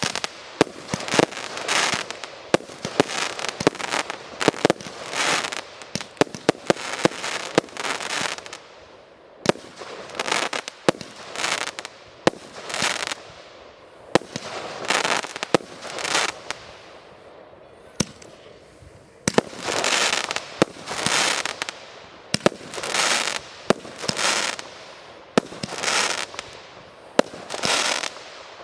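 Fireworks display: a rapid series of sharp bangs, each followed by a longer hissing burst, about one a second, with a short lull a little past the middle.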